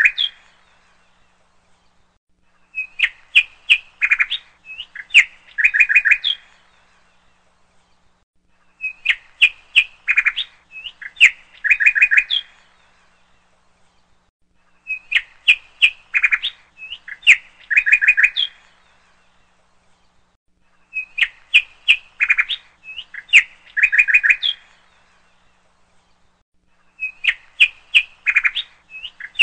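Bird chirps and sharp clicks in clusters of about three seconds, repeating in the same pattern about every six seconds with quiet gaps between: a looped bird-sound track.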